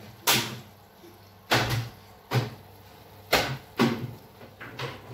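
A series of sharp knocks and clatters, about six at irregular intervals, each with a short low ring, like kitchen things being handled.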